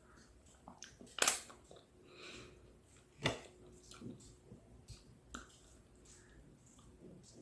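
Close-miked eating of soft ripe fruit: wet chewing and mouth smacks, with a sharp loud smack about a second in and another about three seconds in, and lighter clicks between.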